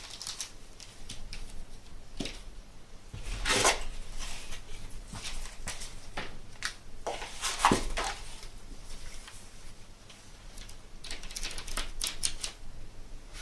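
Packaging being handled: intermittent rustling and small clicks of paper and plastic being moved about, with a couple of louder short knocks, about three and a half seconds in and again near eight seconds.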